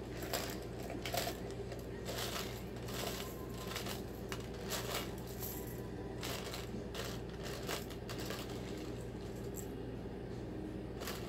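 Plastic toy chain links clattering and rattling against each other and a plastic cup as a cockatoo digs its beak into the cup and tips it over. There are irregular clicks throughout, the loudest about a second in.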